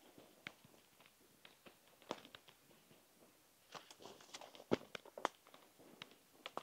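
Faint footsteps on a dry forest floor: irregular crunches and small crackles of twigs and dry litter, busiest a little before the end.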